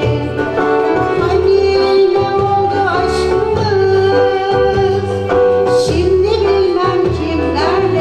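Female soloist singing a Turkish classical (Türk sanat müziği) song in makam Rast, with a violin in the accompanying ensemble. A repeating low rhythmic accompaniment runs under the melody.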